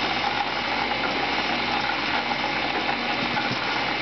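Homemade CNC coil winder running steadily, its motors turning the spindle and traversing the wire guide as it winds 24-gauge Litz wire onto the coil form: an even mechanical whir with a steady hum.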